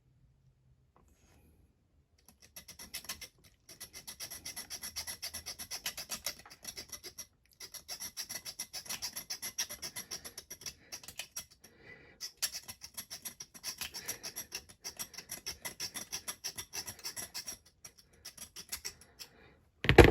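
Hand hacksaw cutting a small metal bolt on a diecast model car: quick, even back-and-forth rasping strokes in several runs broken by short pauses. A single sharp knock comes right at the end.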